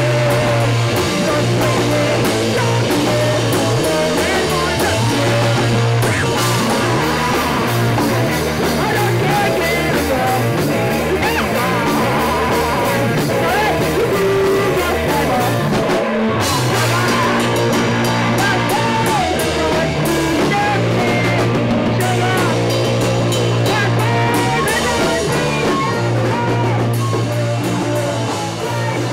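A live band playing a loud rock song: electric guitar and drum kit with a sung vocal, the guitars played without effects pedals. There is a brief break about sixteen seconds in before the band comes back in.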